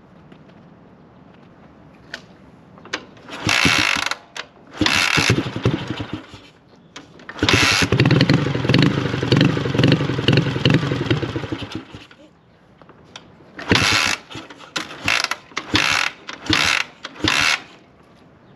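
Dnepr K-650 flat-twin motorcycle engine being kick-started cold after a long lay-up. Two kicks fire briefly. About seven seconds in it catches and runs for roughly four seconds before dying. Near the end come five or six more short kicks and firings. The owner puts the hard starting down to the weak battery, now on a charger.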